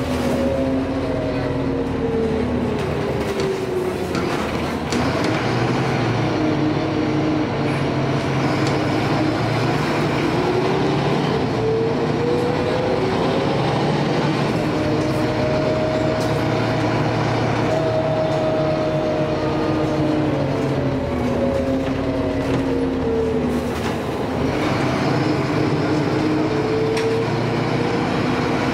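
Heuliez GX 317 diesel city bus heard from inside the cabin, its engine and drivetrain droning over road rumble. The pitch falls and rises several times as the bus slows and picks up speed.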